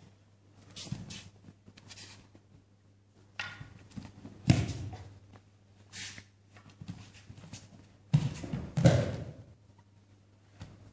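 Thuds of bare feet stamping and a body landing on a padded mat during a wooden-staff (jo) exchange. There are half a dozen separate thumps, the loudest about four and a half seconds in and again twice between eight and nine seconds.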